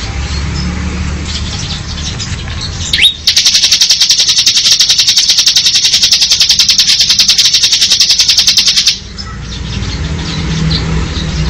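Bar-winged prinia (ciblek) giving its 'ngebren' song: after a few soft chirps, a loud, very fast machine-gun-like trill of high notes about three seconds in, held for nearly six seconds and then stopping abruptly.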